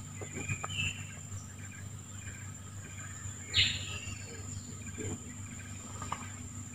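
Swamp-forest ambience: a steady high-pitched insect drone with a few short bird calls, the loudest about three and a half seconds in.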